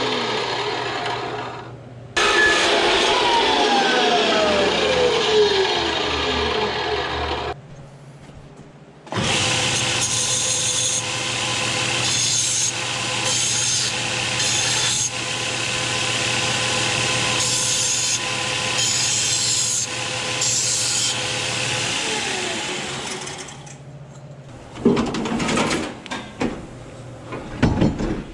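A metal-cutting chop saw cuts a metal intercooler pipe bend and its motor winds down with a falling whine, twice. Then a belt sander runs with the pipe end pressed against the belt, a steady grinding, followed by a few knocks near the end.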